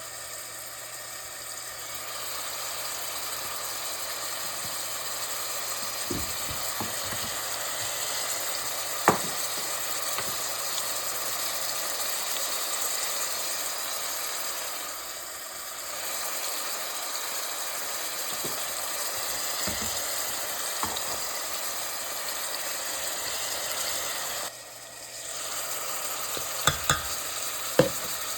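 Food sizzling steadily in a hot pan, with a few sharp clicks of a utensil against the pan, several near the end.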